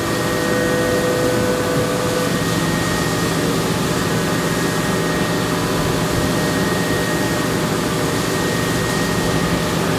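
CNC milling machine running its cycle, a 10-degree chamfer mill chamfering an aluminum barrel band under flood coolant: a steady hiss of coolant spray and spindle noise with a few held tones, one of which drops away a couple of seconds in.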